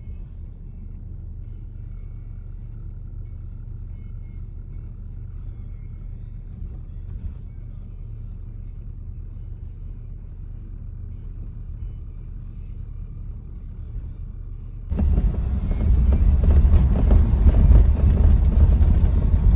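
Car driving noise heard from inside the cabin: a steady low road rumble. About fifteen seconds in it jumps suddenly to much louder rushing wind and road noise.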